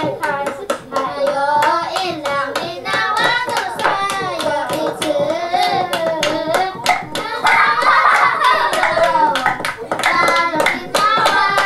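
Voices singing or chanting over rhythmic hand clapping, several claps a second.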